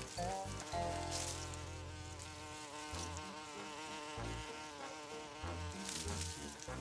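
Cartoon sound effect of a flying striped insect buzzing, its pitch wavering up and down, over background music.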